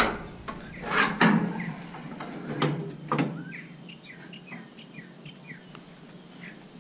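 A songbird chirping repeatedly in short, quick falling notes. A few sharp knocks sound in the first few seconds and are louder than the chirps.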